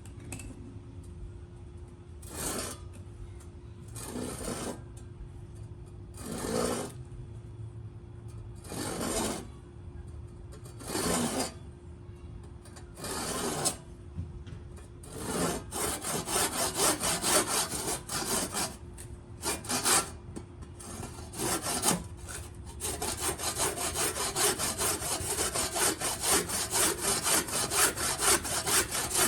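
Handsaw cutting wood: slow single strokes about every two seconds at first, then quicker strokes, then steady fast sawing over the last several seconds.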